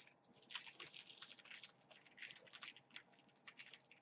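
Faint, irregular crinkling and clicking of small packaging being handled up close, as a collectible pin is worked out of its plastic pack.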